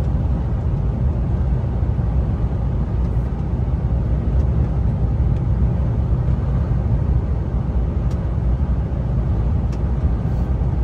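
Tractor-unit truck cruising at highway speed, heard from inside the cab: a steady low engine and road rumble.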